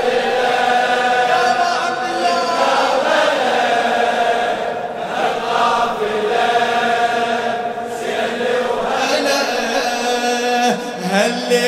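A large crowd of male mourners chanting the refrain of a Shia latmiya lament together in unison, many voices held in long sung lines.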